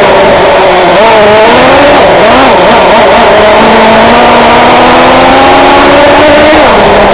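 Traxxas Jato 3.3's small nitro engine running loud at high revs, its pitch falling briefly a few times as the throttle comes off, then climbing slowly and steadily for several seconds as the car accelerates, with a sharp dip near the end.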